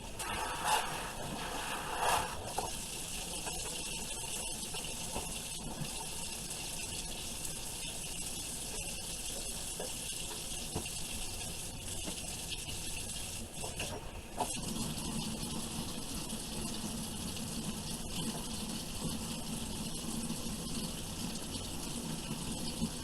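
Tap water running steadily while a child's hair is washed. Two brief louder sounds come near the start, and about fourteen seconds in the flow changes, taking on a lower rumble.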